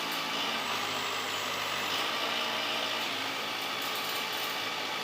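A heavy vehicle engine running steadily with a hissing noise over a low hum, starting and stopping abruptly.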